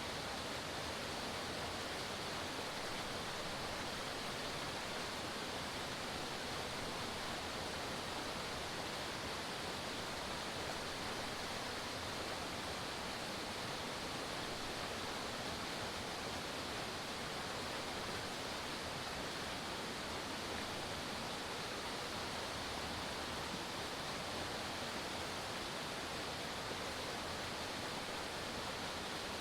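Forest waterfall: a steady, even rush of falling water.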